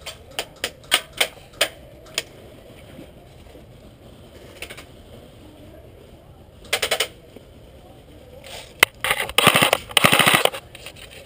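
Airsoft electric rifle firing: about seven single shots in the first two seconds, a short full-auto burst about seven seconds in, then the loudest part, longer full-auto bursts from about nine to ten and a half seconds.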